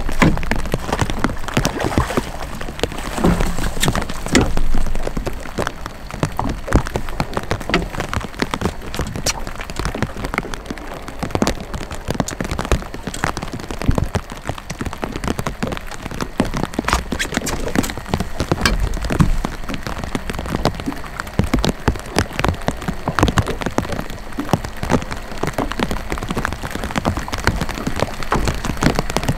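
Dense, irregular patter of light rain on the boat and the water, with a few louder knocks near the start as the netted walleye is handled.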